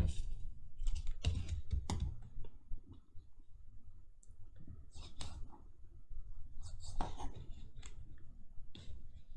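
Scattered light clicks and short scrapes of a scoring tool and cardstock paper parts being handled and worked on a hard surface, at irregular moments.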